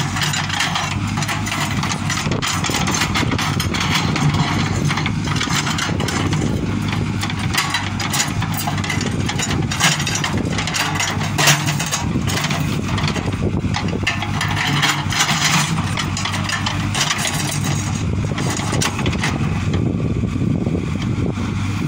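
JCB 3CX backhoe loader's diesel engine running steadily under work, while its backhoe bucket digs and scrapes through rocky soil. Stones knock and clatter against the bucket throughout, with one sharper knock about eleven seconds in.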